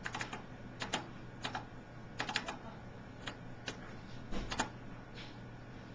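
Clicking of computer controls while operating CEREC CAD/CAM design software: short sharp clicks, some single and some in quick runs of two or three, at an irregular pace, over a faint steady low hum.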